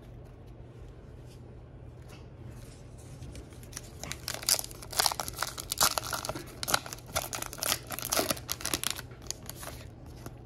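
A trading card pack's plastic wrapper being torn open and crinkled by hand. The crackling starts about four seconds in and goes on for about five seconds.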